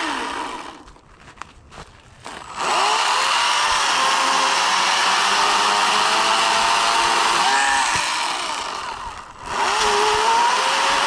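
Ego 16-inch cordless electric chainsaw revved at full speed, a steady high whir of motor and chain. Just after the start the trigger is let go and the whir winds down nearly to nothing. It spins back up about two and a half seconds in, then winds down and back up once more around nine seconds in.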